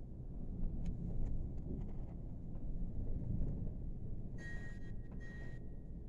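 Blizzard wind buffeting the building, a low, rumbling rush that swells and fades, as heard from indoors behind glass. About four and a half seconds in, two short high-pitched tones sound one after the other.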